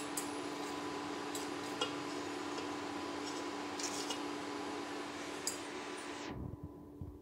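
A metal fork clicking and scraping against a stainless-steel pot and a steel plate as cooked taco shells are lifted out, a few separate clicks, over a steady hiss and low hum. The hiss cuts off suddenly about six seconds in.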